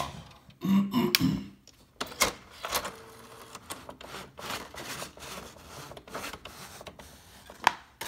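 Panasonic KX-W50TH electronic thermal typewriter being switched off and back on, giving a scattered series of clicks and light knocks from its switch, keys and print mechanism. There is a louder low sound about a second in.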